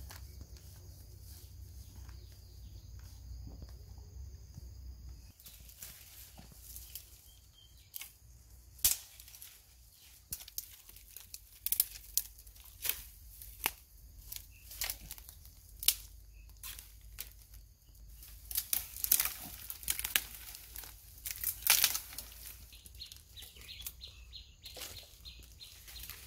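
Leaves, vines and twigs rustling and crackling as someone pushes through dense undergrowth: an irregular run of sharp snaps and swishes, some much louder than others.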